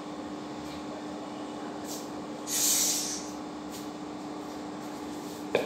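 A steady low hum, with a short hiss about two and a half seconds in and a single sharp knock near the end.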